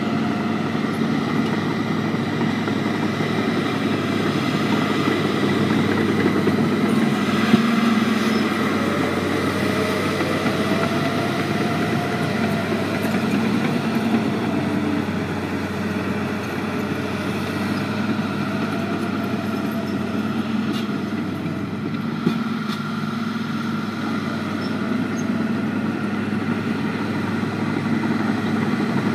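Diesel engines of a crawler dozer and a skid-steer loader running steadily while they push and spread dirt. A faint whine rises and falls about ten seconds in, and there are a couple of light clanks.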